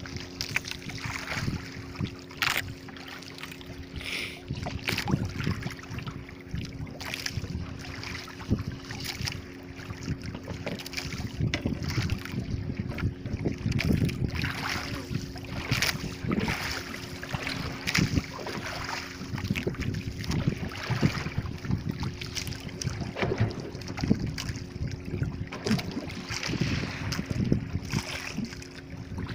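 Water sloshing and slapping against the hull of a small outrigger fishing boat, with wind on the microphone and a steady low hum throughout. Scattered sharp knocks and clicks come from work on board.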